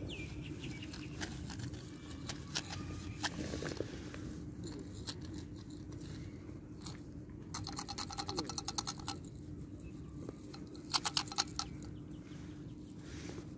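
A plastic jar of dry cat food scraped and rattled as a tabby kitten paws and claws at it. There are scattered clicks and two short bursts of rapid scratchy clicking, the second near the end, over a faint steady hum.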